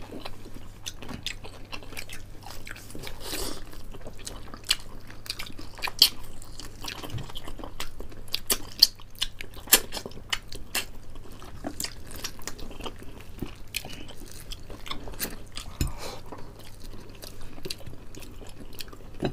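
Two people biting and chewing crispy fried chicken close to the microphone: a steady run of irregular crunches and mouth clicks, a few of them sharper and louder.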